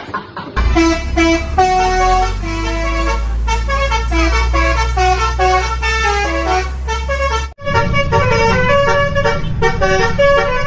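Basuri telolet bus horn playing a quick tune of short stepped honks over a low steady rumble. The tune cuts off sharply about seven and a half seconds in, and a second horn tune starts straight after.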